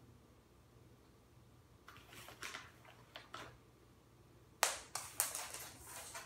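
Small cat treats clicking and rattling across a hard floor in two bursts of taps, the second opening with a sharp tap about four and a half seconds in.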